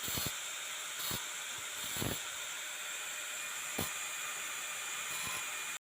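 A power grinder grinding the steel blade of an old rubber tapping knife to shape: a steady high hiss with a few short knocks as the blade is worked. It cuts off suddenly near the end.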